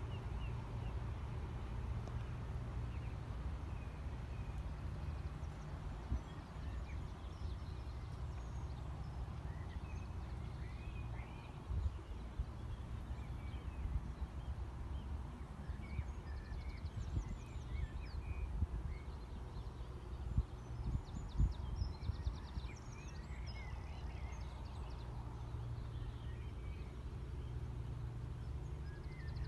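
Wind buffeting the microphone in a low, uneven rumble with occasional louder thumps, while small birds chirp and trill faintly in the background, more busily in the second half.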